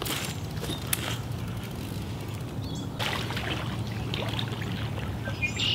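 Shallow pond water splashing and sloshing as a hooked carp is drawn in and netted with a landing net, a few splashes spread over a steady low hum.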